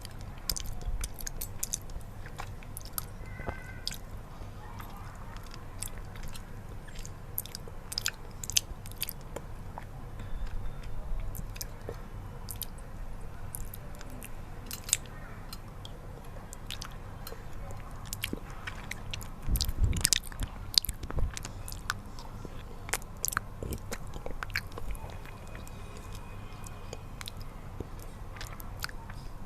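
Close-miked chewing and biting, with many sharp, sticky mouth clicks at an irregular pace. The sounds grow denser and louder about twenty seconds in.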